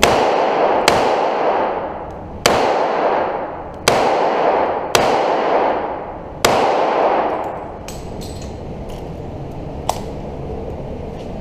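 Six revolver shots fired at an uneven pace over about six and a half seconds, each followed by about a second of echo in an enclosed indoor range. After the shots come a few faint clicks and one sharper small tick near the end.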